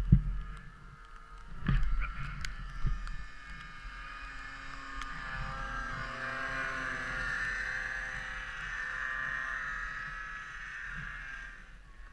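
A motor engine running steadily for about ten seconds, swelling slightly midway and fading near the end, after two loud low thumps at the start and about two seconds in.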